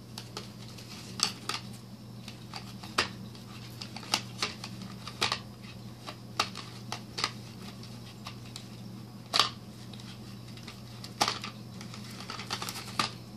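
Small paper gift box being handled and its ribbon untied: irregular light clicks and rustles of paper and card, over a steady low hum.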